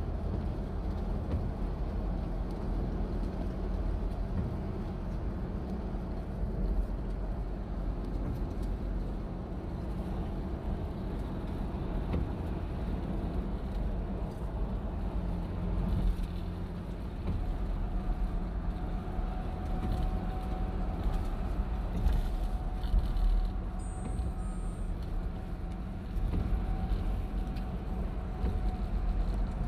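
Car driving at highway speed, heard from inside the cabin: a steady rumble of tyre and road noise with engine hum.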